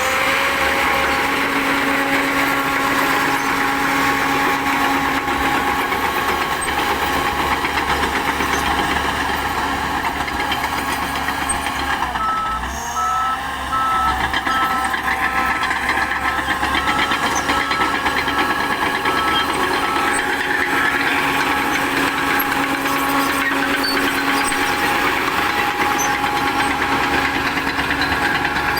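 Shantui DH10B2 crawler bulldozer's diesel engine running steadily; near the middle the engine dips briefly and a reversing beeper starts, beeping evenly for about ten seconds as the dozer backs up.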